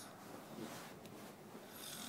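Heavy snoring: a quieter breathing pause between two snores, with the next loud, hissy snore starting near the end.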